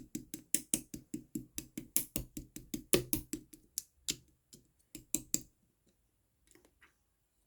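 Glittery jelly-like slime being worked by hand, making a quick run of sharp wet clicks, about four a second. The clicks stop about five and a half seconds in, and a few faint soft squishes follow.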